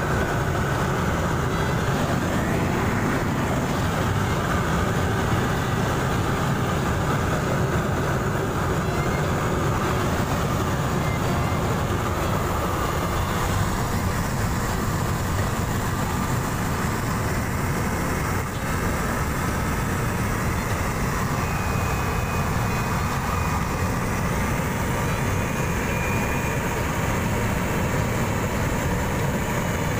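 Steady drone of a small propeller plane's engine and propeller, heard inside the cabin in flight.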